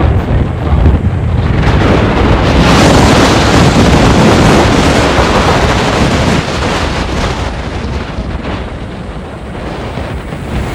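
Wind buffeting the microphone of a phone carried on a moving scooter, a loud rushing that swells through the middle few seconds and eases off toward the end.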